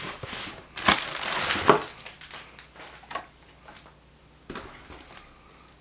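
Cardboard shipping box being opened by hand: the flaps scrape and rustle, with two sharp cracks in the first two seconds, then a few softer knocks as it goes quieter.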